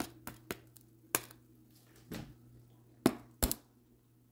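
A wooden spatula tapping on the crisp broiled skin of a roasted pig's head, a series of sharp, irregular taps with the two loudest about three seconds in; the hard taps show the skin has turned crunchy.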